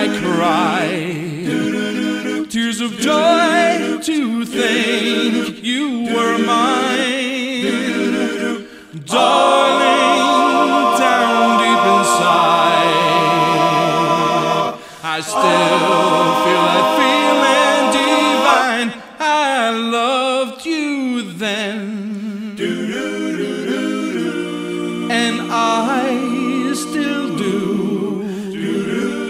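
A male vocal quartet singing a cappella in harmony, several voices holding long chords together, with brief dips in level between phrases.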